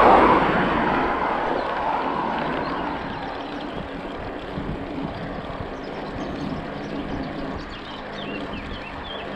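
A motor vehicle passes close by, loudest right at the start and fading over the next two or three seconds. A steady rushing noise remains, with a few faint high chirps near the end.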